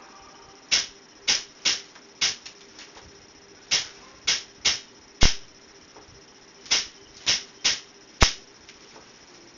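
A series of sharp clicks or taps in three groups of four, each about half a second apart, with a pause of about a second and a half between groups; the last click of the second and third groups is the loudest.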